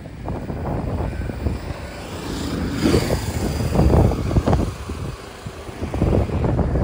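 Wind buffeting the microphone, with a motor vehicle passing by that is loudest about three seconds in.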